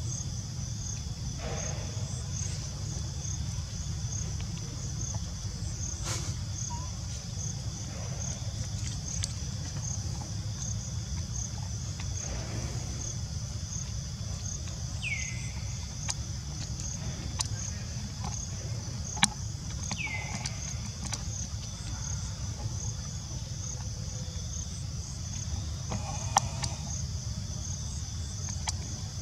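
Steady chorus of insects, a high pulsing buzz, over a low steady rumble. Two short falling chirps sound about fifteen and twenty seconds in, with scattered faint ticks.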